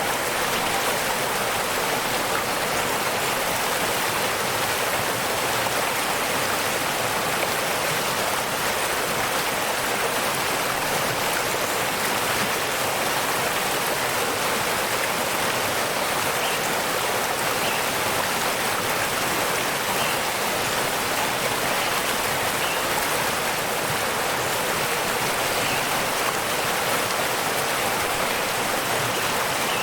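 Waterfall: water rushing and splashing in a steady, unchanging flow.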